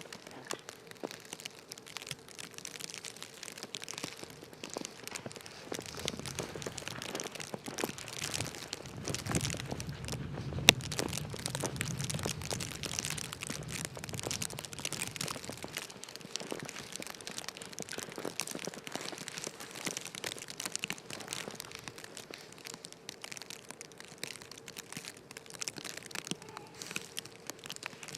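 Snow crunching underfoot, an irregular crackling and crunching texture, with a single sharp click about ten seconds in and a low rumble through the middle.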